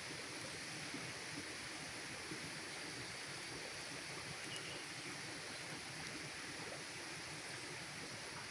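Campfire burning in the open: a steady rushing hiss with a few faint, sparse crackles.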